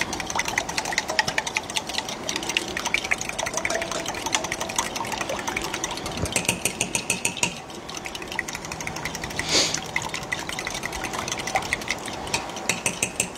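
Eggs being beaten with a fork in a glass jug: a rapid, steady run of clicks as the fork strikes the sides, briefly easing off partway through.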